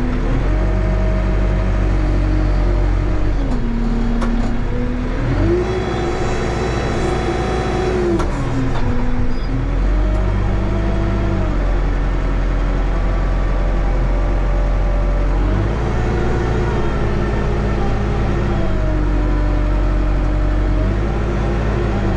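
Case 580 Super M backhoe's diesel engine running, heard from inside the cab, revving up and back down several times as the machine is driven and its loader is raised.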